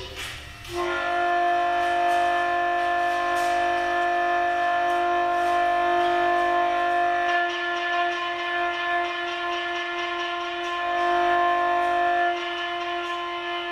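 A long, steady horn-like tone that starts about a second in and holds at one pitch; around twelve seconds its upper notes fall away and it goes a little softer.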